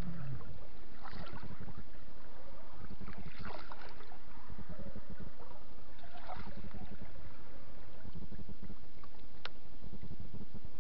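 Steady wind rumble on the microphone and water lapping at a small fishing boat. Three short splashy washes come through, and there is one sharp click near the end.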